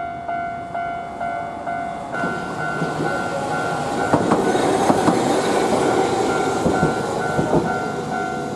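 Japanese level-crossing warning bell dinging about twice a second. From about two seconds in, a train passes through the crossing, with a rising rush of wheel noise and clacks over the rail joints that are thickest in the middle of the pass.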